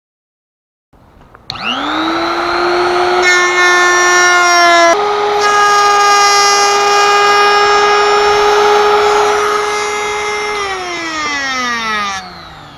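Electric wood router starting up with a fast-rising high whine and cutting into a pine board. Its pitch sags slightly under the cut, then steps up about five seconds in and holds steady. It winds down in a long falling whine near the end as it is switched off.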